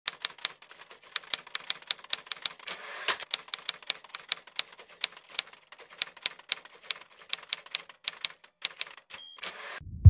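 Typewriter keys clacking in quick, uneven strokes, several a second. Near the end comes a brief high ding and then a short rasp.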